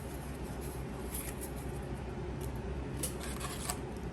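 Faint rustling and a few soft ticks of trading cards being handled and slid past one another, over a steady low hum.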